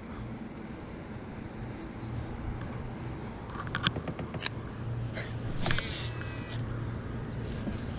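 Shimano SLX DC baitcasting reel being handled and cast: a few sharp clicks, then a short whir of the spool paying out line with a thin whine. A sharp click follows at the very end.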